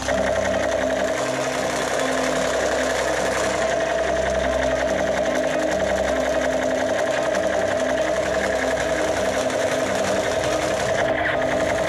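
Battery-powered toy gun's small motor running continuously with a steady buzz and a rapid, even rattle.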